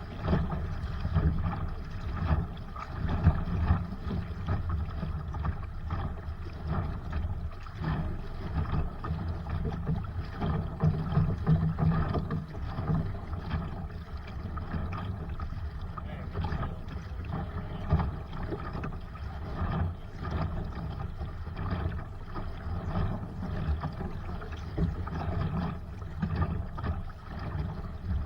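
Wind buffeting the microphone while a Sunfish sailboat is under sail, with water rushing and splashing against the hull. The rumbling gusts come unevenly and do not let up.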